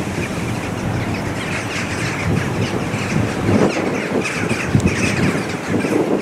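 A large flock of birds wheeling overhead, calling constantly in many overlapping squawks, with a few louder calls standing out, over a steady low rush.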